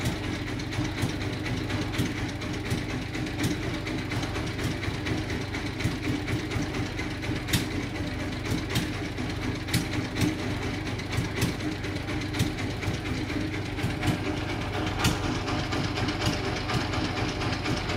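Large industrial band sawmill running: a steady machine drone with irregular rattling clicks and knocks throughout.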